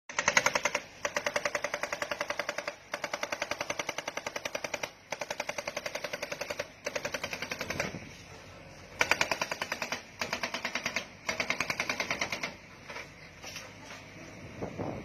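Hydraulic breaker on a Komatsu PC70-8 excavator hammering into concrete rubble: rapid strikes, about ten a second, in runs of one to two seconds with short pauses between, turning quieter and patchier near the end.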